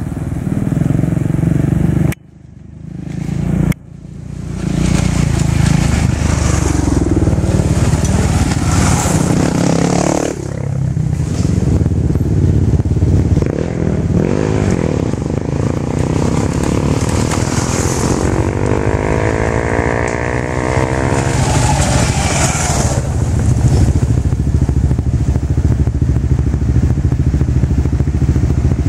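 Motorcycle engines running on a dirt road, a steady low rumble, with the engine note rising and falling in the middle. The sound drops out sharply for about two seconds near the start.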